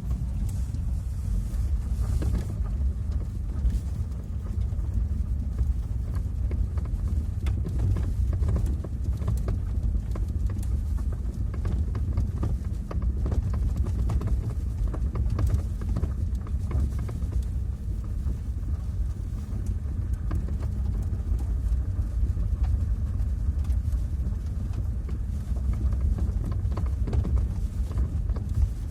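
Car driving with a steady low rumble, and many short, irregular knocks from the right side of the front suspension.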